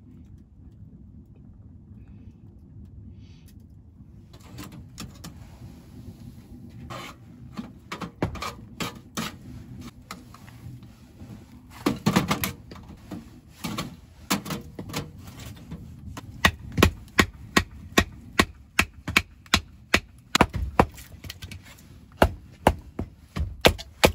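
Scattered knocks and handling of firewood, then from about two-thirds of the way in a steady run of sharp wooden knocks, about two a second: a piece of wood used as a baton, beating down to split a log.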